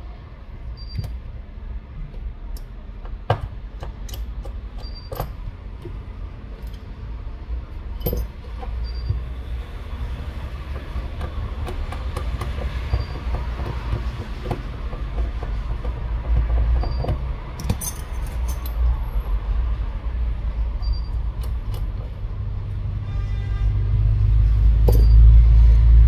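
Scattered small clicks and taps of metal repair tools and tiny parts inside a smartphone being taken apart. They sit over a low rumble that grows louder near the end.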